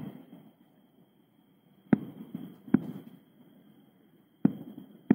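Distant aerial fireworks bursting: about five sharp bangs at uneven intervals, each trailing off in a rolling echo.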